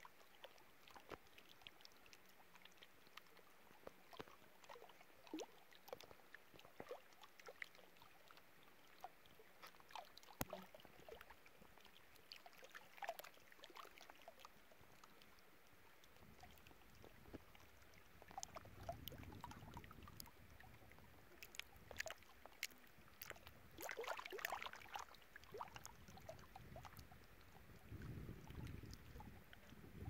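Faint lapping of small waves on a mountain lake, many soft irregular ticks and splashes of water. A low rumble comes and goes in the second half.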